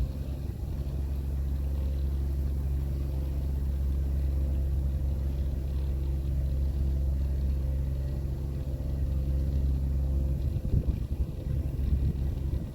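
New Holland MC35 compact tractor running a snowblower, its engine giving a steady low hum. The sound grows rougher and more uneven about ten seconds in.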